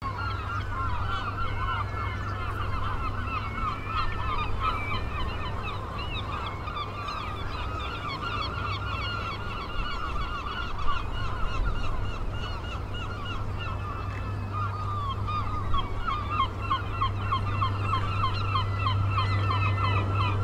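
A flock of silver gulls squawking and squabbling over food, a dense, continuous chatter of short, overlapping calls. Underneath runs a steady low hum, and a couple of sharp taps stand out about halfway through.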